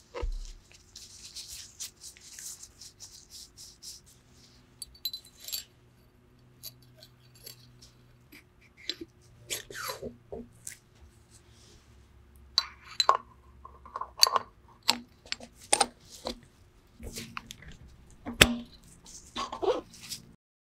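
Brake master cylinder parts handled in nitrile-gloved hands. Glove rustling comes first, then a run of small clicks, clinks and knocks as the pistons and springs are worked into the metal bore, with one sharper knock near the end.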